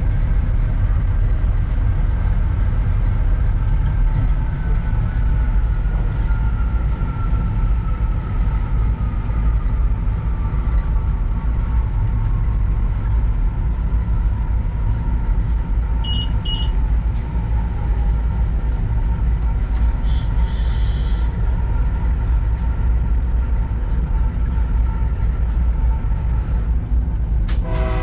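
Wabtec AC44i diesel-electric locomotive heard from inside its cab while running through a tunnel: a loud, steady rumble, with a whine that slowly falls in pitch over several seconds. Two short electronic beeps come about halfway through, then a brief hiss, and the locomotive's horn starts sounding right at the end.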